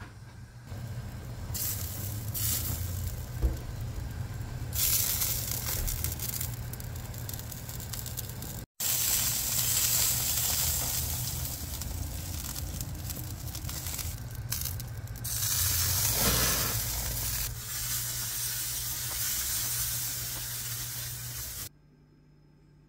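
Whole chicken sizzling and hissing on a rotisserie spit over a gas grill as fat and marinade drip, over a steady low hum. The sound cuts out briefly about nine seconds in and stops abruptly shortly before the end.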